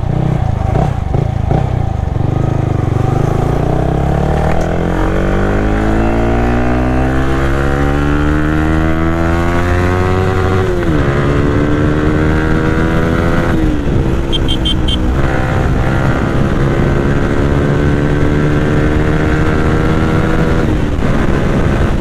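Yamaha R15 V3's 155 cc single-cylinder engine running through an Akrapovic silencer with the dB killer fitted, pulling up through the gears. The pitch climbs, falls at a gear change about halfway through, climbs and falls again soon after, then holds fairly steady at cruising speed.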